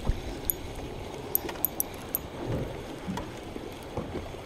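Water sloshing and lapping against a small boat's hull at sea, with a few light, sharp clicks in the first couple of seconds.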